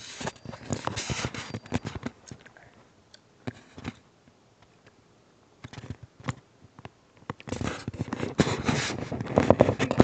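Handling noise from a phone being moved around: scraping and rubbing with many small clicks, in two stretches, one at the start and a louder one over the last two and a half seconds, with a quiet gap between.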